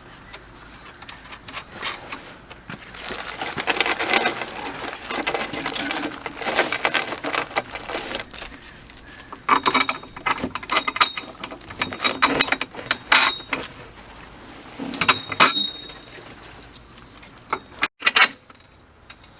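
Construction work on a raised bar frame: irregular metallic clinks, knocks and scraping as parts are handled and fitted, with a few short ringing metal clinks.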